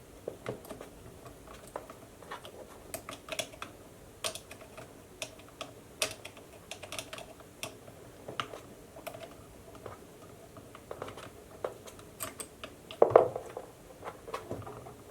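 Phillips head screwdriver backing screws out of an airsoft sniper rifle, a run of small irregular clicks and ticks. There is a louder clatter about thirteen seconds in.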